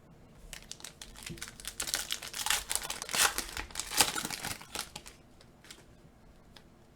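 Trading card pack wrapper crinkling and tearing as the pack is ripped open by hand, a run of crackly rustling that is loudest about three to four seconds in.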